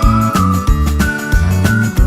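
Upbeat background music with a steady beat and a high whistle-like lead melody.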